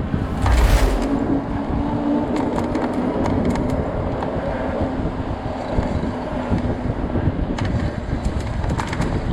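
Street noise of traffic and wind: a loud, rumbling roar with a strong gust about a second in and a steady low hum through the middle.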